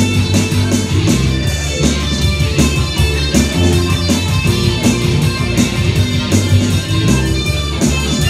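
Live rock band playing at full volume: electric guitar and bass guitar over a drum kit keeping a steady beat.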